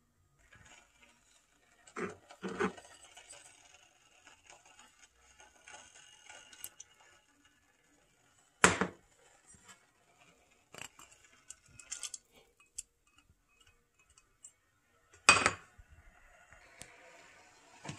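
Sporadic clinks and knocks of cookware and utensils being handled, with two sharper knocks about nine and fifteen seconds in and quieter stretches between.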